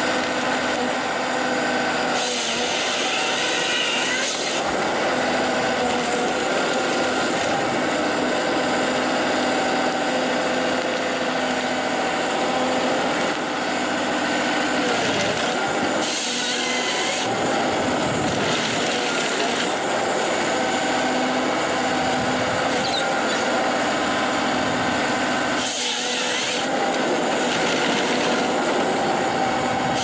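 Forestry harvester at work: its engine and hydraulics run steadily while the harvester head's chain saw cuts through logs three times, each cut a bright, rasping burst lasting a second or two, with the feed rollers and delimbing knives working the trunk in between.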